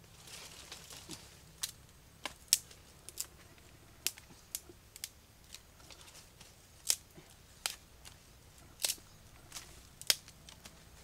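Scattered sharp clicks and light taps at irregular intervals, roughly one or two a second, with a soft rustle about a second in.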